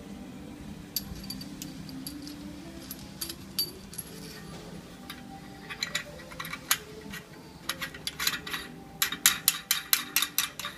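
Sharp metallic clicks and clinks from tools and fittings being worked on a bathroom faucet install, scattered at first, then coming quickly, several a second, near the end, over a low steady hum.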